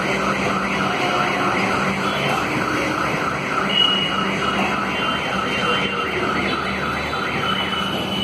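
Passenger train coaches rolling slowly past on departure, with a rhythmic chirping squeal repeating about three times a second over a steady low hum and rumble.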